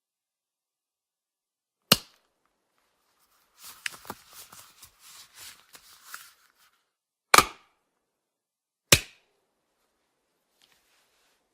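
Cartoon sound effects: a single sharp crack about two seconds in, a few seconds of light, irregular clattering clicks, then two more sharp cracks about a second and a half apart.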